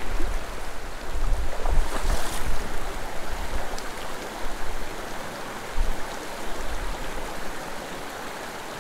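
Small mountain stream running over rocks, a steady rush of water. Irregular low rumbling thumps on the microphone come and go over the first six seconds or so.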